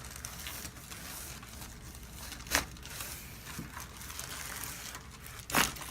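Faint rustling and crinkling, with two sharp clicks about three seconds apart, the second the louder.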